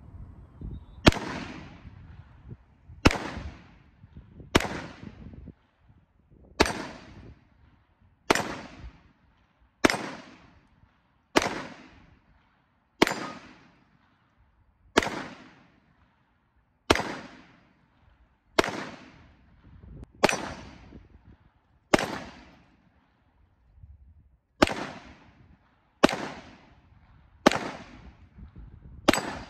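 Grand Power Stribog 9mm semi-automatic pistol fired in slow, steady single shots, about seventeen in all, roughly one every one and a half to two seconds. Each sharp crack is followed by a short echoing tail.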